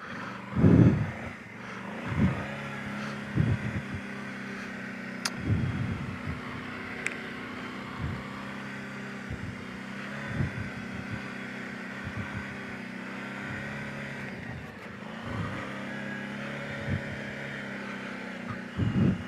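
Kawasaki Brute Force 750 ATV's V-twin engine running at a steady, low trail speed. Frequent short low thumps break in every second or two.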